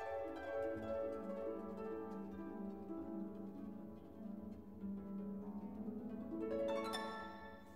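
Background instrumental music, a melody of held notes that changes pitch every second or so.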